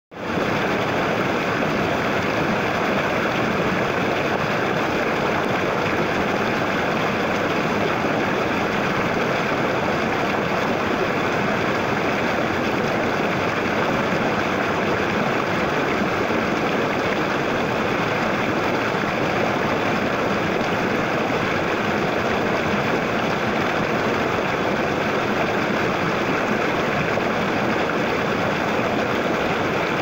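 Shallow stream flowing over a stony bed, its water rushing steadily, heard close to the water surface.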